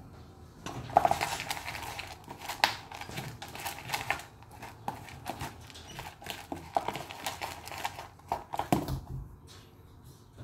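A plastic spoon stirring and scraping a dry, crumbly seed-and-paste canary rearing mix in a clear plastic tub: a run of scratchy rustles and sharp clicks against the plastic, thinning out near the end.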